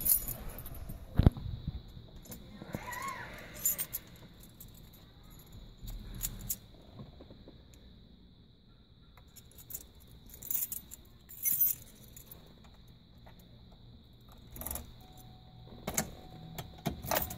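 Car keys jangling and clicking as they are handled and fitted into the ignition of a Fox-body Mustang, with scattered small clicks and a sharp knock about a second in.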